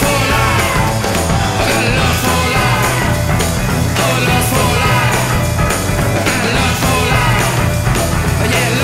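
Rock song with a singing voice over a driving band, laid over the footage as a soundtrack.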